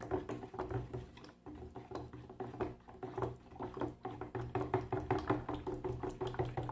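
A spoon stirring wet plaster in a metal coffee can, knocking and scraping against the can in a quick, steady run of several strokes a second while the mix thickens.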